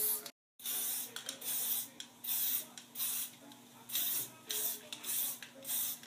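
Aerosol spray-paint can being sprayed in a quick series of short hissing bursts, about a dozen, each under half a second with brief pauses between. The sound cuts out completely for a split second near the start.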